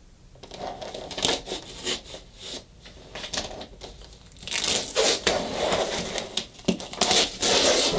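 A knife slitting the plastic wrap on a cardboard product box, then the plastic film being torn and crinkled as it is pulled off, with scrapes and knocks of the box being handled. Soft scratching at first, growing louder and busier about halfway through.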